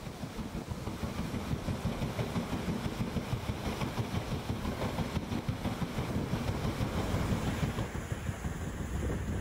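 Paddle steamer Waverley's paddle wheel churning the sea, its floats striking the water in a quick, even beat, with wind on the microphone.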